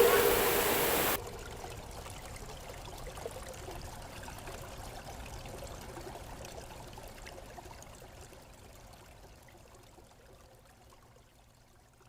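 River water flowing. A loud rush in the first second cuts off suddenly to a quieter, steady flow that slowly fades away.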